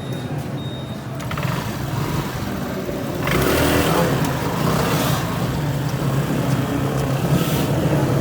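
Racing vehicle engines running, a steady drone that grows louder and rougher about three seconds in.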